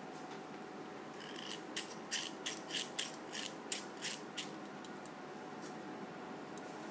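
Stainless-steel thumb-push pepper grinder being pumped with the thumb, its ratchet mechanism clicking about ten times, roughly three a second, before stopping. The mill is still empty, so there is no crunch of peppercorns.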